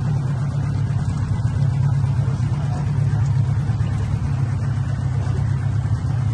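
Outboard motor of an inflatable rescue boat running at a steady speed through floodwater: a constant low drone.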